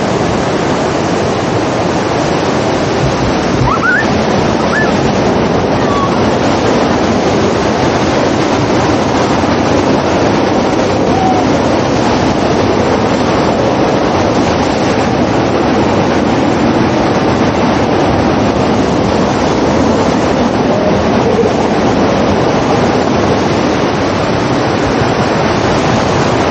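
Steady, loud rushing of a FlowRider sheet-wave machine: water pumped in a thin fast sheet up its sloped ride surface.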